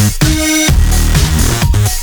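Electronic dance music with a heavy bass beat and sliding synth tones.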